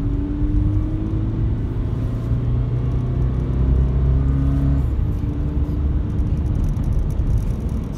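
Car engine and road rumble heard from inside the cabin while driving. The engine note climbs slightly, then falls away about five seconds in, leaving mostly rumble.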